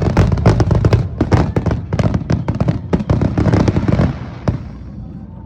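Aerial fireworks going off in a rapid barrage of many overlapping bangs and crackles. The barrage stops about four seconds in, with one last bang shortly after.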